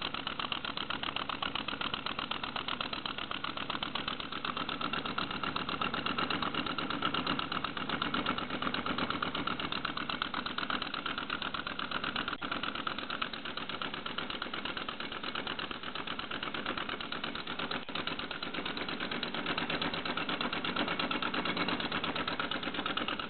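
2½-inch gauge model Flying Scotsman locomotive's cylinders and valve gear running on compressed air with no boiler fitted: a fast, steady rhythm of air exhaust beats and mechanical clatter.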